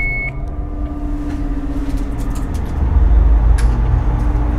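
A low, steady rumble with a held hum over it. The rumble grows louder about halfway through, and a brief high beep sounds at the very start.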